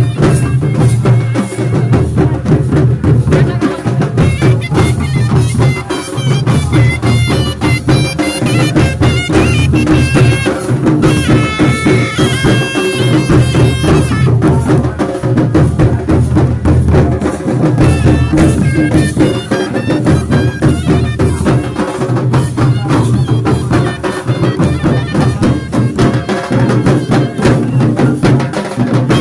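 Loud traditional folk music with steady drumming and a reedy wind-instrument melody, as played in a Sarhul procession.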